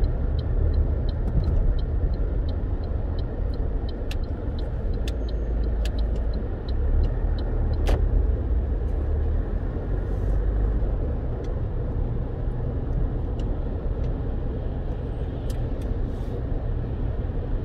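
Car driving on rain-soaked streets, heard from inside the cabin: a steady low rumble of engine and tyres on the wet road. Scattered sharp ticks of raindrops hit the body and windscreen, with one louder tick about eight seconds in.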